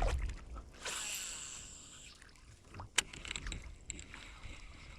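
Handling sounds from a fishing kayak on the water: a rush of hiss about a second in and a single sharp knock about three seconds in, over a low wind rumble.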